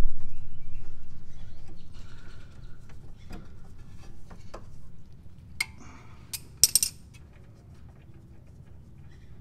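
Metal tools clinking while a ratchet and extension back out the 8 mm Allen-head bolt of a power steering line clamp. A low rumble at the start fades over about two seconds, then a few sharp metallic clinks come, the loudest a quick cluster just past the middle.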